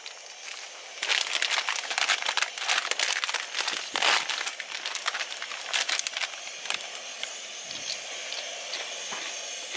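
Crinkly plastic snack bag being handled and opened: a dense run of crackling rustles that thins out after about six seconds.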